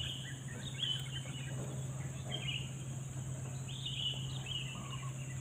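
Birds calling with many short, falling chirps, over a steady high-pitched insect drone.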